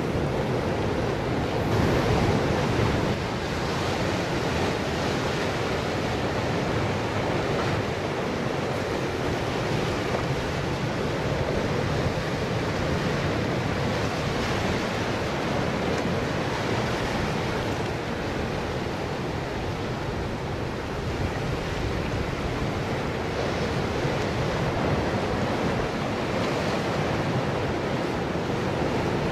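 Ocean surf breaking and washing around shoreline rocks: a steady rush of waves.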